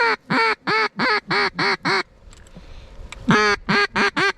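Mallard duck call blown in two runs of loud hen quacks, each opening with one longer quack and followed by about five shorter, evenly spaced ones.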